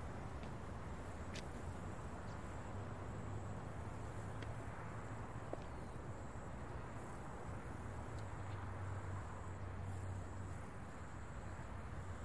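Quiet outdoor background ambience: a steady low rumble and hiss with a faint, thin high tone, and a few faint ticks.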